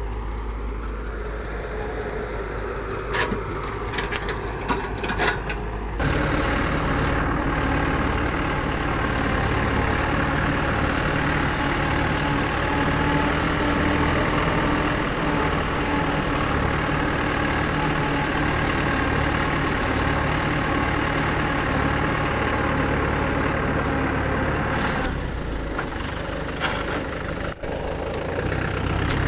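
Tractor diesel engine running steadily, heard close up from the driver's seat. It is fainter with a few sharp clanks in the first few seconds, then suddenly louder and even.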